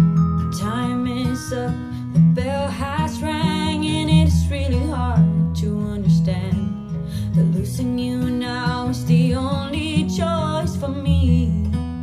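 A song played back through Revel F226Be floorstanding speakers and picked up in the room by a binaural dummy head: a sung vocal with vibrato over guitar and steady bass notes. The voice sings two phrases, one starting about half a second in and running to about five seconds, the other from about eight to eleven seconds.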